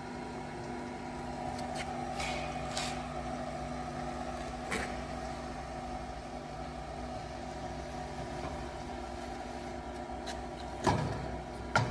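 Edge banding machine running with a steady motor hum and a few light clicks, then two sharp knocks near the end.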